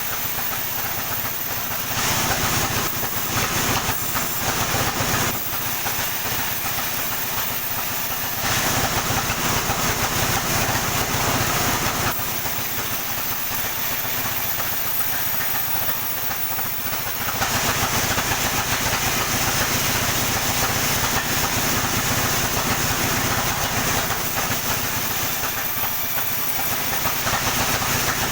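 Sawmill running steadily while sawing a coconut palm trunk. Louder stretches of hissing cutting noise begin about 2, 8 and 17 seconds in, as the blade passes through the trunk.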